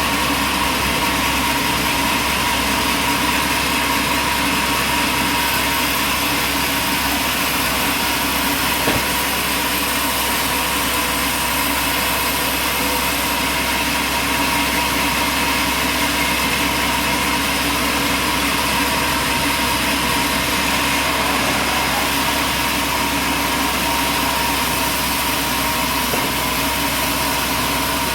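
Machinery running steadily: an even, unbroken drone with a few constant high tones and no change in load.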